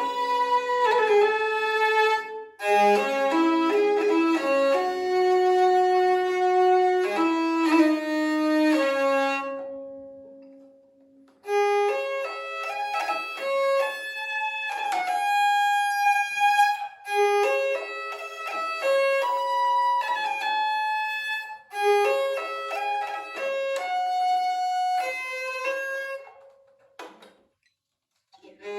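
Evo hurdy-gurdy playing a melody over steady drone notes, its wheel-bowed strings sounding like a fiddle. The playing stops and dies away about ten seconds in, picks up again, and stops once more near the end.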